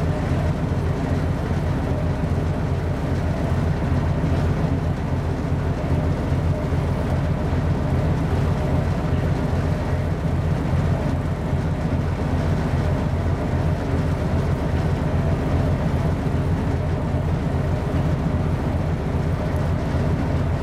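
Steady low rumble of a ship's diesel engine droning at constant speed, with a faint even hum above it and no change throughout.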